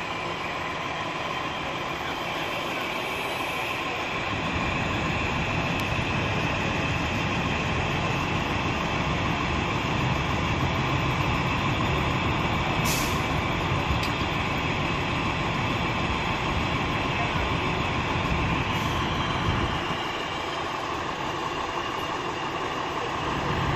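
Engines of parked fire apparatus running, a steady mechanical drone with a faint steady whine. A heavier low rumble comes in about four seconds in and eases off near the end.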